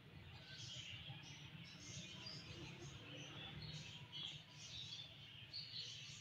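Faint, scattered chirping of small birds in the background, many short chirps over a low steady hum.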